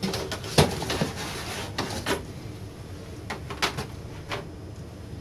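A string of sharp clicks and knocks from parts being handled on a workbench, irregularly spaced, the loudest about half a second in.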